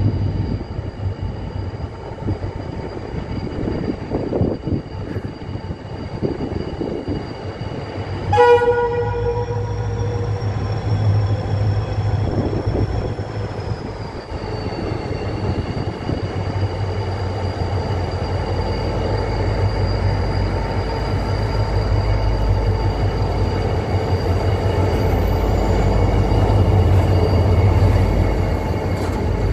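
Diesel locomotive hauling an engineering train approaches and passes, its engine a low rumble that grows steadily louder toward the end. One short horn blast sounds about eight seconds in, the loudest moment.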